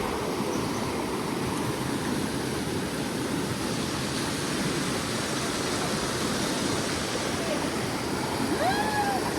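River water rushing steadily in a continuous even wash of noise. Near the end, a short call rises and falls in pitch above it.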